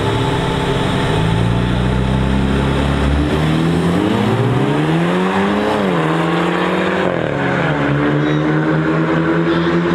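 Ford Mustang and BMW 3 Series sedan accelerating hard side by side in a street race, engine pitch climbing as they pull away. The pitch drops twice at upshifts past the middle, then the engine note runs on steadily as the cars recede.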